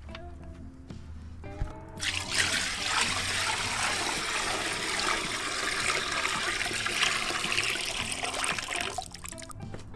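Fresh bitter orange juice poured in a thick stream into a large metal pot, splashing and frothing as it fills. The pouring starts about two seconds in and stops near the end, over background music.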